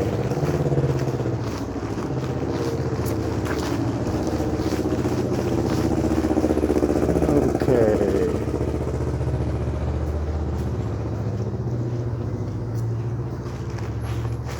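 Street traffic: a motor vehicle's engine running steadily, its pitch swooping up and down as it revs around the start and again about eight seconds in.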